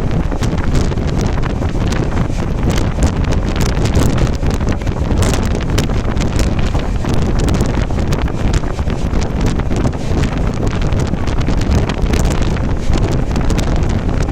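Passenger train coaches rolling past at speed, with steady rumble and irregular sharp wheel clatter, and wind buffeting the microphone.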